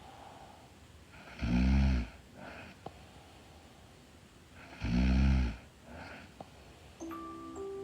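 A young woman snoring in her sleep: two loud, pitched snores on the in-breath about three seconds apart, each followed by a softer breath. Near the end a few held, chime-like musical tones begin.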